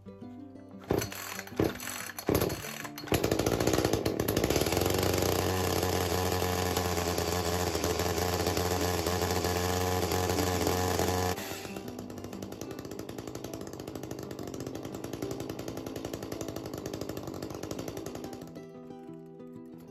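A new Echo CS-310 two-stroke chainsaw being pull-started on its first start: a few short, sharp cord pulls, then the engine catches about three seconds in and runs loudly, dropping to a quieter, steady idle about eleven seconds in before fading out near the end. Background music plays underneath.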